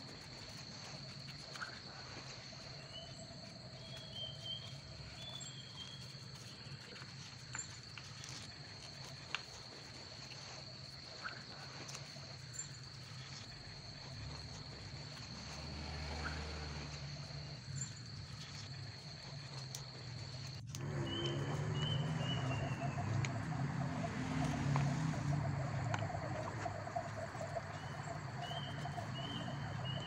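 Outdoor ambience: a steady high insect drone with short bird chirps now and then, and a few faint clicks of paper being folded. The drone cuts off suddenly about two-thirds through, where the background grows louder.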